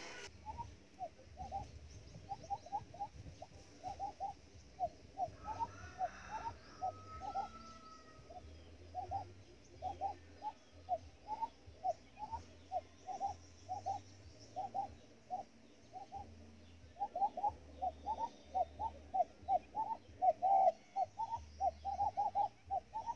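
Quail calling: a long run of short, low, rising notes, about two to three a second, with brief breaks and a quicker run near the end.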